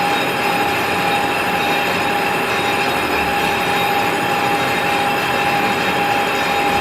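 A motor-driven workshop machine running steadily, with one constant whine over a rough, grinding hiss.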